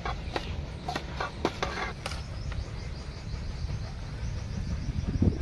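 Light clicks and scrapes of a metal slotted spoon against steel trays as rice is scooped and pushed into the goat, over a low outdoor rumble, with a faint rapid high chirping in the second half.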